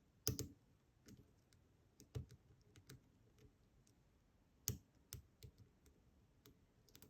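Faint, irregular metallic clicks and taps of a steep hook pick working the pins of an ASSA 700 pin-tumbler lock under tension, with a few louder clicks about a third of a second in, around two seconds and near five seconds.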